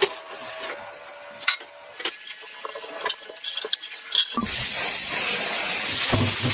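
Light scraping and clicking of hand work, then about four seconds in a steady, loud hiss of spraying starts, with a low hum coming in near the end.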